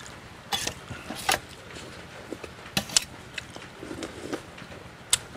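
A person eating, with chewing and mouth noises and several sharp clicks. There is a slurp from a spoon about four seconds in.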